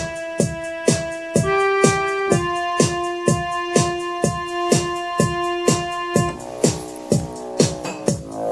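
Yamaha PSR-i500 portable keyboard playing one of its auto-accompaniment styles: a steady drum beat of about two and a half hits a second under held melody notes. About six seconds in, the pattern changes to denser chords.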